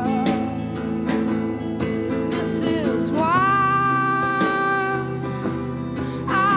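Live band music: a woman sings a slow song over guitar and drums. Past the middle she holds one long note for about three seconds.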